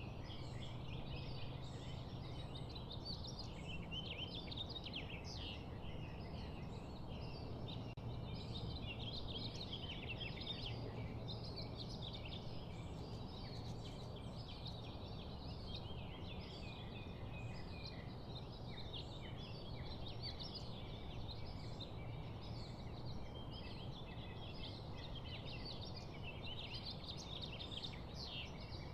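Many birds chirping and chattering at once in a dense, continuous flock chorus, over a steady low background hum.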